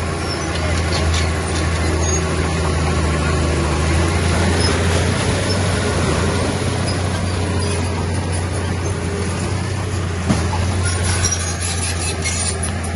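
Diesel engine of heavy earthmoving machinery running steadily with a low drone. Scattered metallic clanks come over it, with one sharp knock about ten seconds in.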